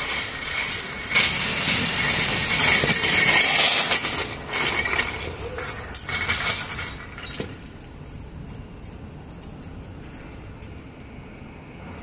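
Metal clinking and rattling as a steel tyre dolly is rolled across a concrete floor and set under a bus wheel, loudest in the first few seconds and quieter after about seven and a half seconds.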